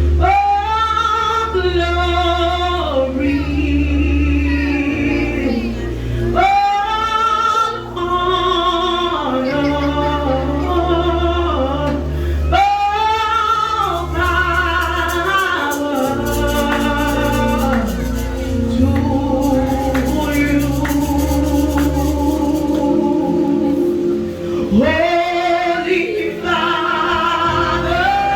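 Gospel worship song: a female lead voice with other singers, over a steady keyboard or bass accompaniment.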